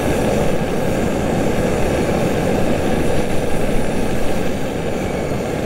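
SOTO ST-330 single gas burner running steadily under a perforated heater attachment: a loud, even rushing of the flame.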